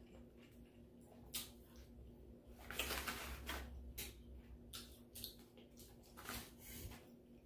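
A small plastic sauce packet being handled, torn open and squeezed onto French fries: scattered crinkles and clicks, with a louder rustle lasting about a second near the middle.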